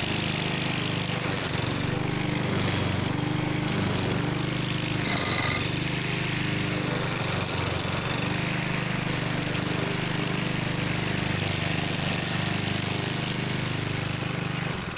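Cub Cadet walk-behind string trimmer's small engine running steadily as it cuts down weeds, then shutting off near the end.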